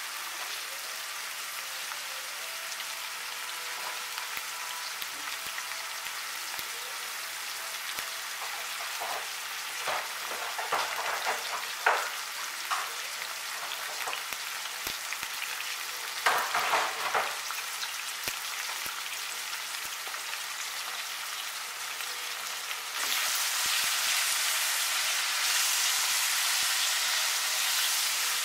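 Sliced bell peppers and garlic sizzling in oil in a frying pan, with a few brief louder crackles. The sizzle turns louder about 23 s in and stays up as a spatula stirs them.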